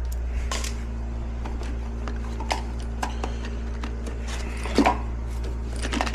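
Scattered clicks and knocks of small parts and tools being handled, the loudest about five seconds in, over a steady low hum.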